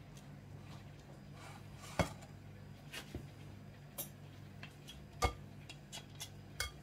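A metal knife and a glass cake stand clinking and knocking against each other during frosting: a handful of sharp clinks, the loudest about 2 seconds and 5 seconds in, over a faint steady low hum.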